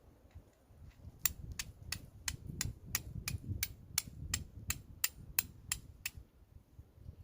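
Steel striker scraped against a flint in a rapid series of about fifteen sharp strikes, roughly three a second, throwing sparks to light char cloth. The strikes begin about a second in and stop near the end.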